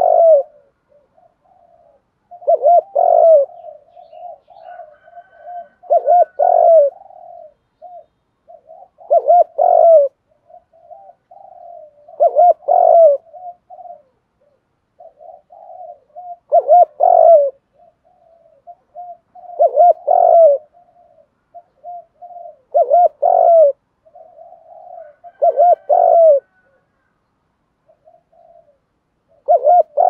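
Spotted dove cooing, repeating its deep multi-note coo phrase about every three seconds, with softer notes between the phrases.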